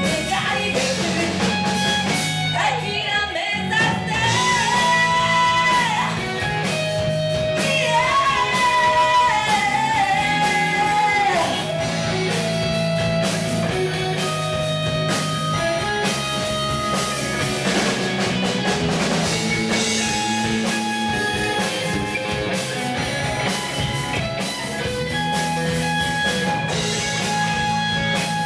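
Live rock band: a singer holds long, wavering notes over electric guitar, bass and drums. About twelve seconds in the singing stops and the band plays on.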